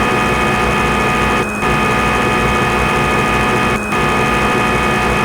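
Swansoft CNC simulator's machining sound effect for the GSK 928 TC lathe running its program in auto mode: a steady machine hum with several fixed tones over a low rumble, dipping briefly twice at even spacing.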